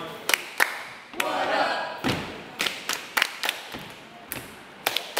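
Body percussion by a group: hands slapping thighs and clapping in an uneven rhythm of sharp slaps, with voices calling out briefly between them.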